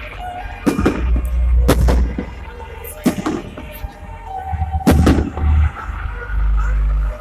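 Aerial fireworks shells bursting overhead in a series of loud bangs, the loudest a double bang about five seconds in.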